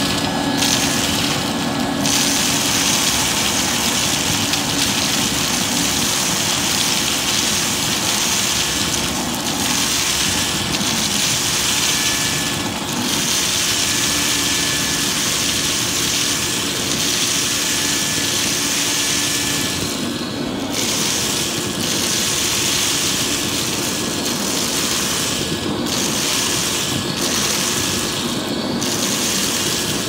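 Vacuum cleaner running steadily, its hose sucking dry cereal and marshmallow pieces out of a bucket: a constant motor hum under a loud rush of air, which dips briefly several times.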